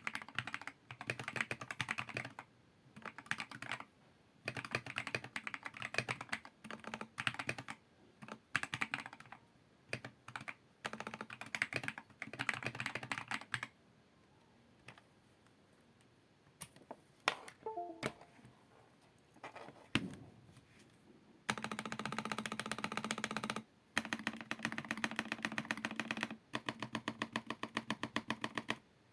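Redragon Fizz mechanical keyboard with lubed Akko Matcha Green switches, XDA keycaps and foam mods, typed on in bursts. About halfway through there are only a few single keystrokes, then the last third holds fast, evenly spaced key presses in three long runs.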